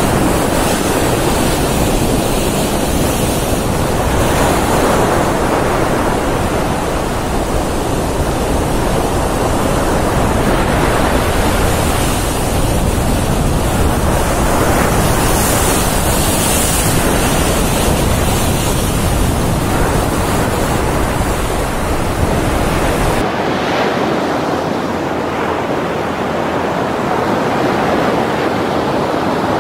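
Heavy ocean swell breaking and churning over dark volcanic rocks and a pebble shore: a loud, continuous rush of surf. Wind buffets the microphone with a low rumble that drops out suddenly about three-quarters of the way through.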